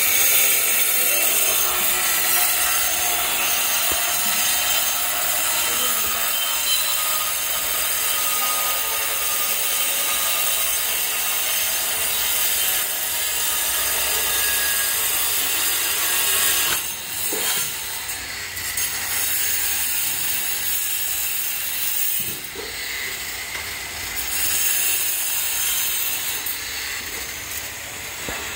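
Hand-held angle grinder cutting red ceramic floor tiles: a loud, steady, high grinding hiss as the disc runs through the tile, with a short dip about 17 seconds in.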